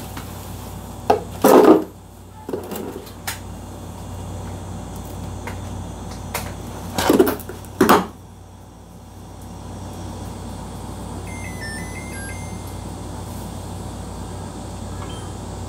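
Rcom Maru Max 200 egg incubator being shut and started: several knocks and clunks from its door and latch being closed in the first half, then its fan hum comes up and its control panel gives short electronic beeps.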